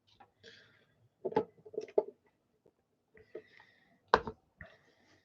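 Packs of trading cards being handled and set down one by one on a table: soft wrapper rustles and a few light taps, the sharpest about four seconds in.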